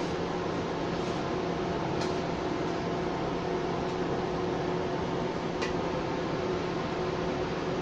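Steady hum of a running fan, with a few faint light clicks, about one, two and five and a half seconds in.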